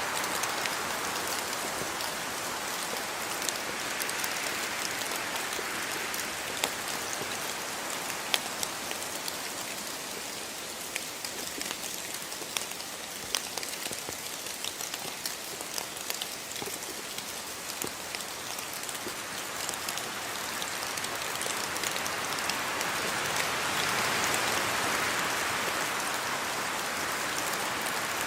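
Steady rain falling, with individual drops ticking sharply on a hard surface. The rain eases slightly midway and swells again near the end.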